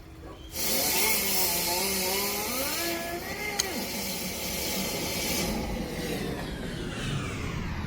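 Dryer-vent cleaning equipment running: a motor over loud rushing air, its pitch wavering and climbing before settling, with one sharp click midway. Near the end the hiss turns duller as its high end fades.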